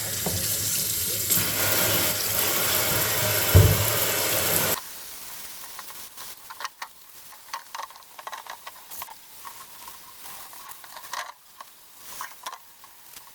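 Water running hard from a tap, with a single thump partway through, cut off abruptly about five seconds in; then scattered light knocks and clicks.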